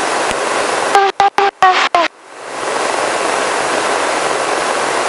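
Steady rushing cabin noise of a Robinson R44 helicopter in cruise flight. About a second in it is cut off in several quick gaps by short clipped tones, then fades back in.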